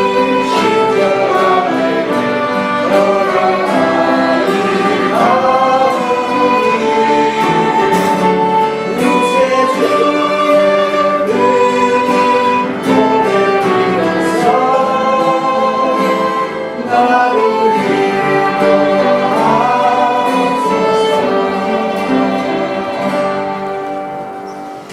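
A song sung with instrumental accompaniment, with held notes, trailing off near the end.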